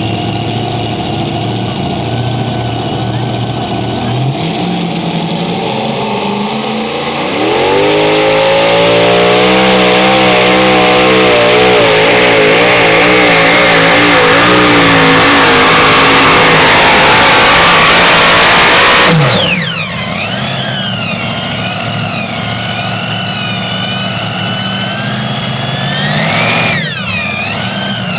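Modified pulling tractor with several supercharged engines idling on the line. About seven seconds in the engines rise to full power and run hard under load for roughly eleven seconds, pulling the sled. The sound then drops suddenly to an uneven idle, with one brief rev near the end.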